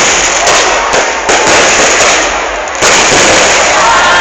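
Fireworks display: loud, dense crackling and popping of bursting shells, with fresh bursts setting in sharply about half a second, a second and a quarter, and nearly three seconds in.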